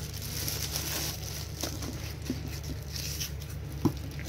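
Plastic bubble wrap crinkling and rustling as pistons are handled in their packaging, with small clicks and one sharper knock near the end, over a steady low hum.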